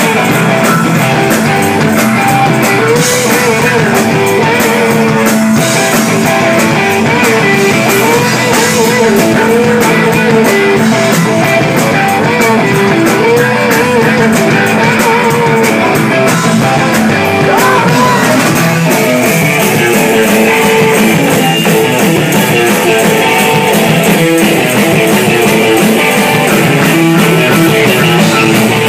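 Rock band playing live and loud, electric guitar to the fore over a drum kit.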